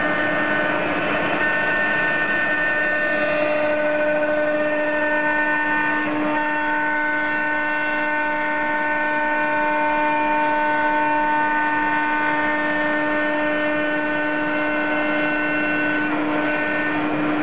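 CNC router spindle milling oak, a steady machine whine over the noise of the cut. Its higher tones shift slightly about six seconds in as the cut changes.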